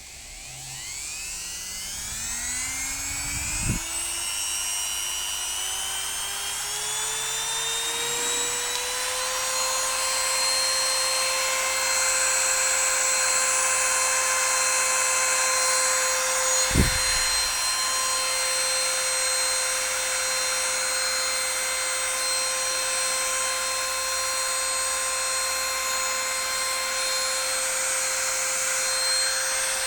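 Fujiyama FG9395N mini grinder running with no load: its motor whine climbs steadily in pitch over the first nine seconds or so, then holds a high, steady pitch. Two dull knocks come about four seconds in and in the middle.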